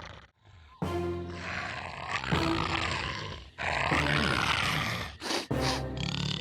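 Dramatic soundtrack music with several loud roars from a large creature, in bursts about a second long that begin after a brief pause.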